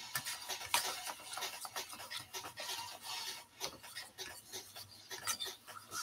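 A metal utensil beating thin flour-and-egg batter in a bowl: quick, repeated scraping strokes against the bowl's bottom and sides.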